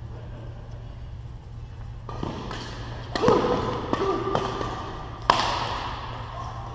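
Badminton rally: rackets striking the shuttlecock in a string of sharp, echoing cracks starting about two seconds in, the loudest about five seconds in, with shoes squeaking on the court floor between shots.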